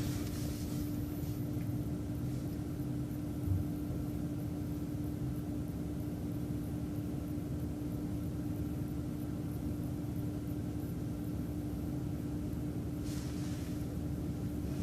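City transit bus driving, heard from inside: a steady low rumble with a steady hum over it, a single knock about three and a half seconds in, and a brief rush of noise near the end.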